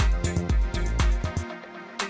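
Electronic background music with a steady kick-drum beat about twice a second; the bass and beat drop out about a second and a half in, leaving lighter synth notes.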